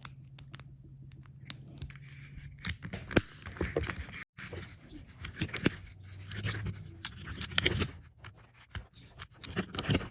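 Irregular small plastic clicks and taps as the caps and pieces of a 2x2 speed cube are pressed and snapped together by hand.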